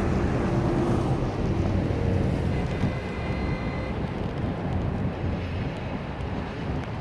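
A low engine hum that slowly fades over the seconds, with wind noise on the microphone.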